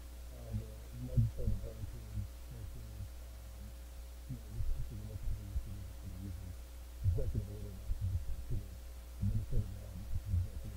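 Steady low electrical hum with irregular, muffled low thumps and indistinct sounds coming and going.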